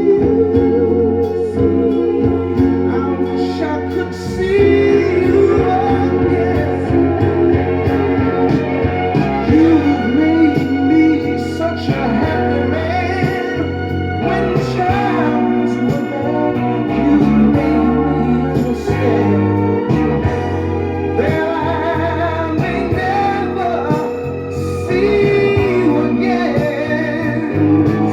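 A recorded song: a singing melody over a band with guitar.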